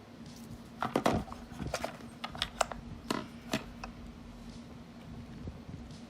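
Hard objects being handled on a surface: a cluster of sharp clicks and knocks over a few seconds, loudest about a second in, with a faint steady hum underneath.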